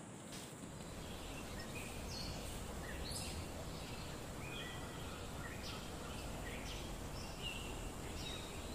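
Outdoor rural ambience: birds chirping in short, scattered high calls every second or so, over a steady high insect drone and a low background hiss.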